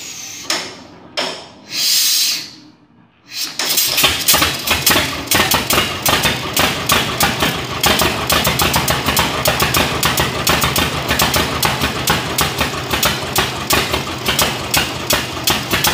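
1926 John Deere Model D's two-cylinder engine being hand-started by turning its flywheel: a few knocks and a short hiss, then it catches about three and a half seconds in and runs with a rapid, steady popping.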